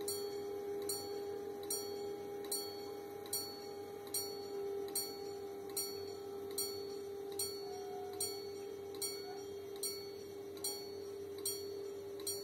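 Italian level-crossing warning bells striking steadily, about one ring every 0.8 seconds, over a continuous steady tone. They are warning of an approaching train while the barriers come down.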